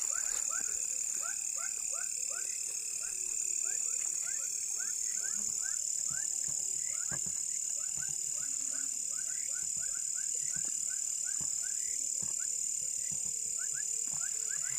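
A night chorus of frogs calling in many short rising chirps, over a steady high-pitched insect drone, with a few faint knocks.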